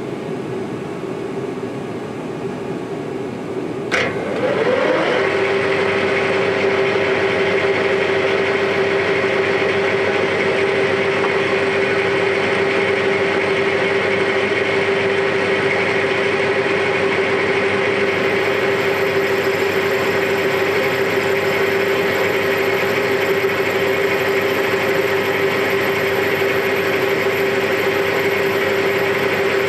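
Metal lathe switched on about four seconds in with a click, its motor and four-jaw chuck spinning up with a brief rising whine and then running steadily.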